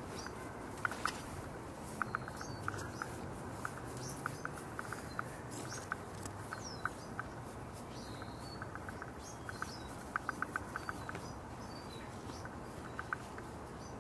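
Outdoor ambience of faint, scattered bird chirps over a low steady hiss, with irregular runs of short, high ticking notes.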